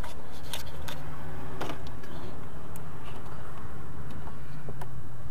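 2004 Jeep Cherokee engine running at a steady idle, with several sharp clicks over it.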